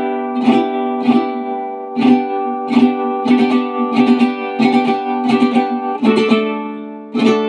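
Mexican vihuela with a Spanish-style round soundhole and flamed cedar body, strummed in rhythmic chords with a strum about every half second. The chord changes about six seconds in.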